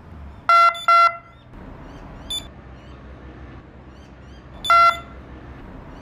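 An alarm system's outside siren speaker beeping in answer to a remote control: two short beeps, then about four seconds later a single slightly longer beep. These are the beeps that confirm the alarm being turned on and off by remote.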